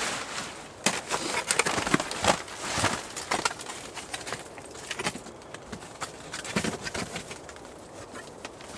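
Crinkling and rustling of a crumpled aluminium foil sheet being handled, with steps of rubber boots on a plastic groundsheet. The crackles come thick in the first few seconds and thin out after.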